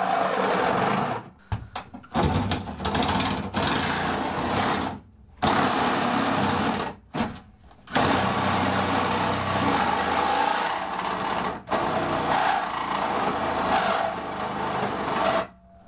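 Cordless reciprocating saw (Milwaukee Hackzall) cutting through the van's sheet-metal body. It runs in several bursts of a few seconds, with brief stops between cuts.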